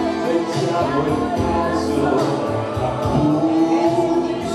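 Live band music with a man singing over it into a microphone.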